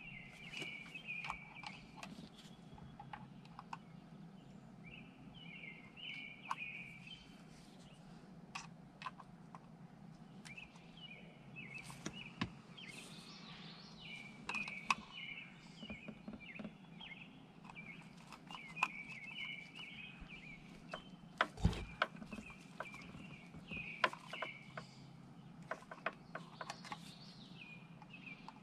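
Small metallic clicks and taps of a screwdriver and feeler gauge at an open distributor as the ignition breaker points are gapped, with one heavier knock about three-quarters of the way through. Birds chirp faintly in the background throughout.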